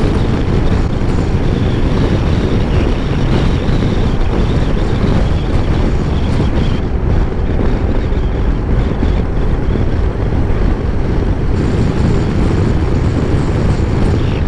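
Steady wind rush over the microphone of a Honda NC750 motorcycle riding at highway speed (about 60–90 km/h), with the bike's engine and road noise blended in underneath.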